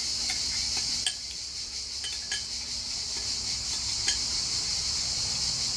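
A metal spoon clinks a few times against a small glass bowl while stirring a vinaigrette of olive oil, balsamic vinegar and salt. Underneath is a steady, high-pitched chirring of insects.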